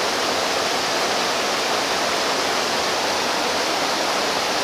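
Water rushing steadily, an even hiss with no breaks.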